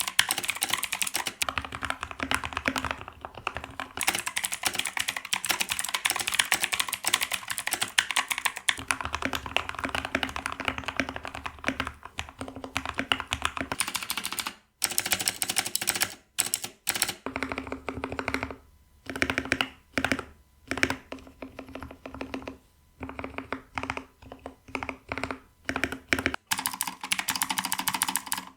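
Fast typing on a computer keyboard, a dense run of key clicks for about half the time, then after a short break typing in shorter bursts with brief pauses between them.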